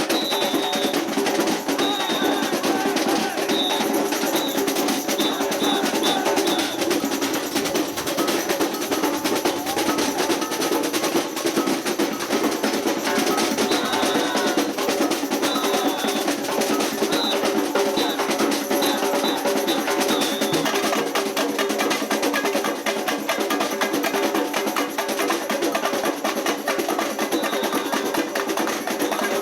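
Samba percussion ensemble (bateria) playing a steady, dense drum groove led by snare drums. A high whistle sounds a rhythmic pattern of short blasts near the start and again about halfway through.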